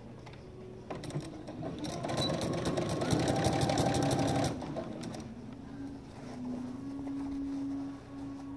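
Electric domestic sewing machine stitching a long straight seam through two layers of cotton. The needle runs at a fast, even clatter from about a second in, then stops and goes on more slowly and quietly with a low motor hum.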